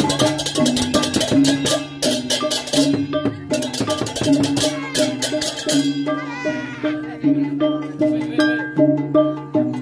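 Balinese gamelan music accompanying a barong procession: fast, dense clashing percussion over a repeating pattern of pitched notes, the clashing thinning out about six seconds in.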